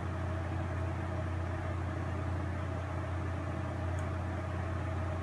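Steady low hum with an even hiss, unchanging throughout, with one faint click about four seconds in.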